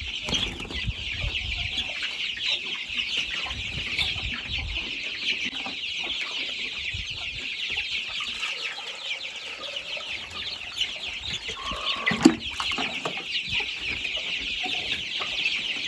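A crowd of young chickens peeping at once: a dense, unbroken chorus of high chirps. A single sharp knock sounds about twelve seconds in.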